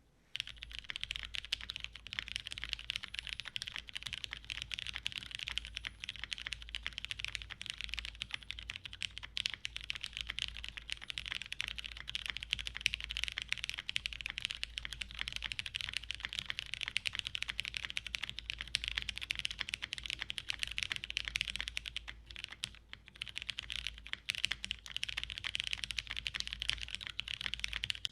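Fast, continuous typing on a custom TGR x Monokei 910 mechanical keyboard with lubed Cherry MX Brown tactile switches on a polycarbonate plate and GMK keycaps, with a brief lull about three quarters of the way through.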